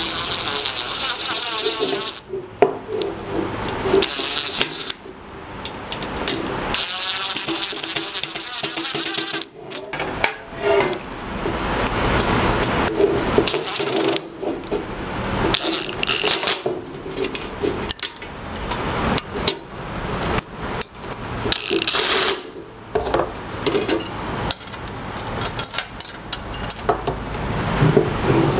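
Cordless drill/driver running in short bursts, driving small screws into the plastic dust-collection box, with clicks and clatter of screws and plastic parts being handled.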